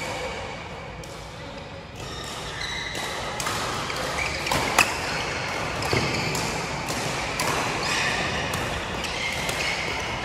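Badminton play: sports shoes squeaking on the court floor, with sharp racket hits on the shuttlecock a little before halfway and again about a second later, the first being the loudest sound.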